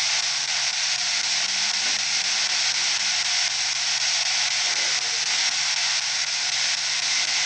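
Steady hiss of static with a faint low hum underneath.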